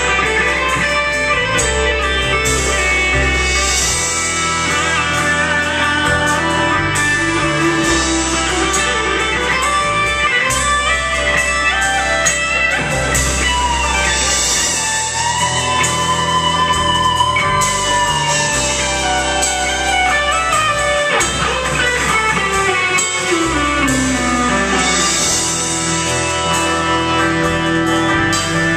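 Live rock band playing loud and steady: electric guitars over bass and drums, through the hall's PA.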